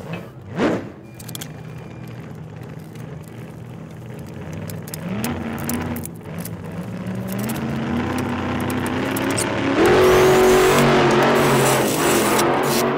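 Cordless drill running, its motor pitch stepping up a couple of times, then boring bolt holes through the motorcycle lift's deck, louder and rougher from about ten seconds in.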